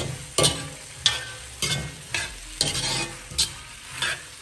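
A steel ladle stirs and scrapes fried chicken cubes and vegetables in a hot black wok, clanking against the pan about every half second over a steady sizzle.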